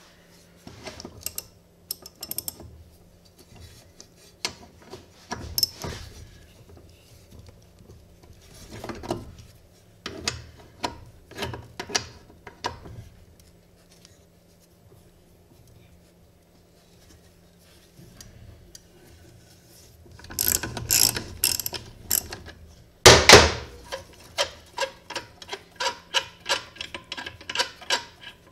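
Hand ratchet wrench clicking in short runs as the mower's blade bolt is turned out, the loudest, fastest run a little past two-thirds in.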